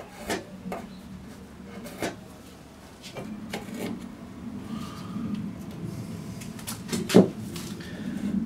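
Handling knocks of a wooden batten against a plywood canoe hull: a scattered series of light knocks and clicks as it is shifted and held in place, the loudest a double knock about seven seconds in.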